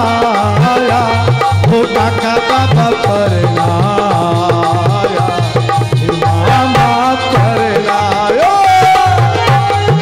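Rajasthani devotional bhajan music: a harmonium playing the melody in held notes over a steady hand-drum rhythm.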